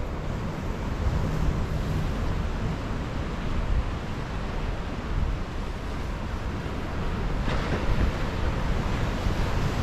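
Ocean surf washing over and breaking on rocks, with wind buffeting the microphone. A wave breaks about seven and a half seconds in.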